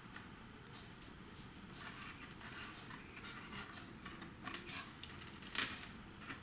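Faint small clicks and rustling of fingers handling and pressing a tiny model walkway lamp into a model railway layout, a few sharper ticks in the second half.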